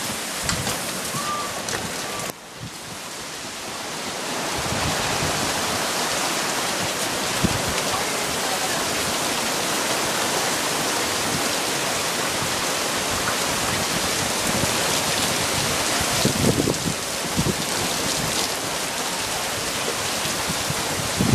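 Heavy rain pouring down in a dense, steady hiss. It drops away sharply about two seconds in and swells back over the next couple of seconds.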